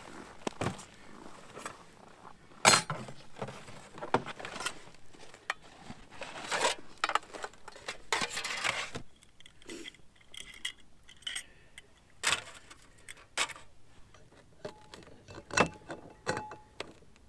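Metal cooking gear being handled: a pot and utensils clinking and knocking in scattered, irregular knocks, the loudest a little under 3 s in.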